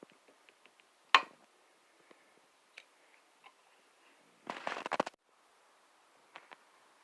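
Folding pocket knife being handled, giving small metallic clicks: one sharp snap about a second in, a quick rattle of clicks at about four and a half seconds, and two light clicks near the end.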